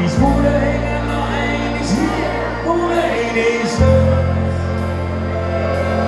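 Live band music: an accordion holds low chord notes under a singing voice, with drum and cymbal hits about once a second.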